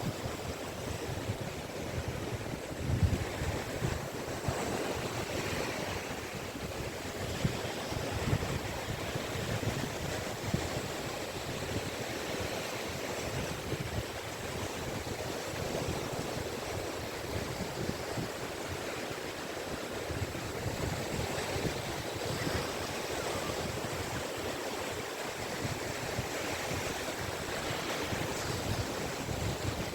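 Caspian Sea waves breaking and washing on the beach: a continuous surf wash that swells and eases, with low rumbles that may be wind on the microphone.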